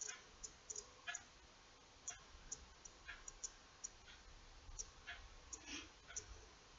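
Faint, irregular light clicks, two or three a second, from a small steel crochet hook being worked through embroidery floss by hand.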